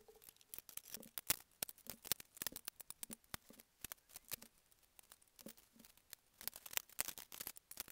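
Irregular sharp clicks and light knocks, several a second, from hands handling wooden boards and a steel tape measure on a workbench.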